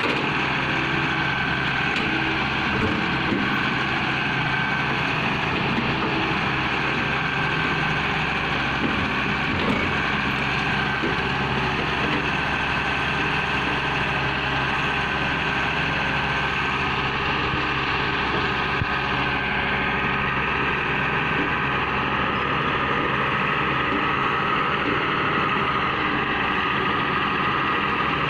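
Sumitomo crawler excavator's diesel engine running steadily as the arm and bucket work a ditch bank, with a steady high whine over the engine note.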